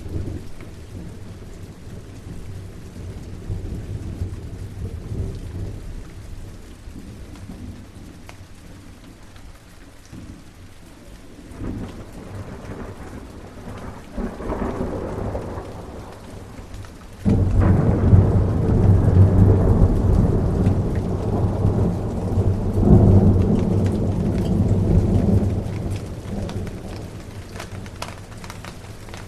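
Steady rain with rolling thunder: a low rumble early on, a swell in the middle, then a loud thunderclap about two-thirds through that rumbles on for several seconds and fades.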